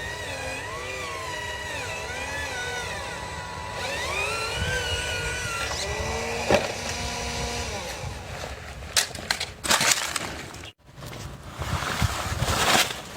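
Whine of small electric motors in radio-controlled model construction machines, gliding up and down in pitch as they speed up and slow down. About two-thirds of the way through it gives way to irregular clattering and crunching, like gravel or stones being handled.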